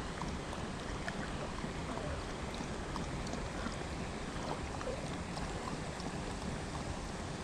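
Steady rushing outdoor background noise with a heavy low rumble and a few faint ticks scattered through it.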